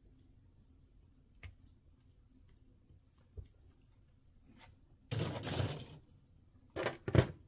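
Plastic model kit parts being handled and pressed together: a few faint clicks, then a rustling scrape about five seconds in and two sharp snaps near the end.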